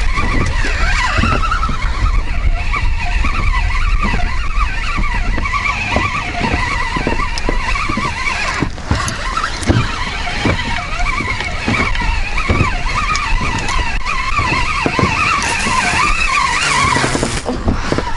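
Wind buffeting the microphone and small waves knocking against an inflatable boat's hull, with many short knocks. Behind them runs a continuous high warbling chorus.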